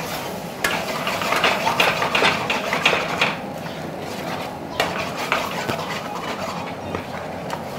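Steel ladle scraping and clinking against a frying pan as a thick, reduced cashew curry is stirred. The scrapes come in quick clusters, busiest in the first half, with a few more about five seconds in.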